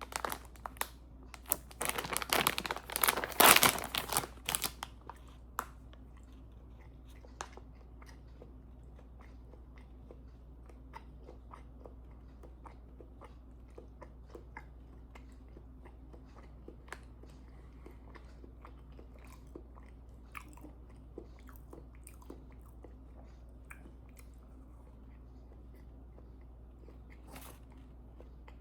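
Close-up eating of soft fudge brownie bites: a loud burst of crackling and crunching in the first five seconds, then quiet chewing with faint scattered mouth clicks.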